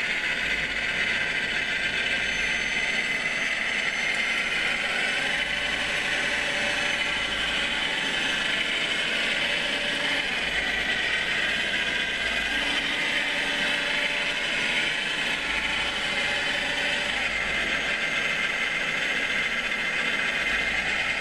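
Steady whir of the small electric motors and gearing of a radio-controlled scale-model Cat 966 wheel loader as it drives back and forth.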